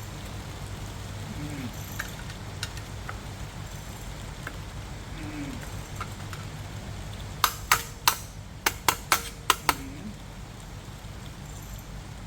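A steady low hum with a quick run of about eight sharp clicks packed into two seconds, about seven and a half seconds in, plus a few faint ticks before them.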